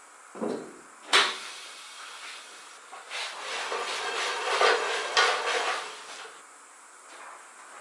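Things being handled and moved about on a workshop floor: two sharp knocks in the first second or so, then a few seconds of scraping and clattering with a couple of louder knocks in the middle.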